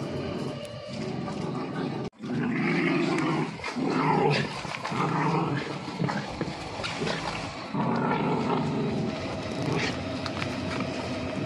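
Two playing dogs, an Italian greyhound and an Italian greyhound–Pomeranian mix, growling in rough play as they chase and wrestle, with a brief break about two seconds in.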